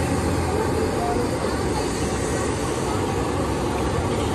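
Steady roar and sizzle of a gas-fired wok of oil with ladu pitha batter balls frying in it, under a background of street noise.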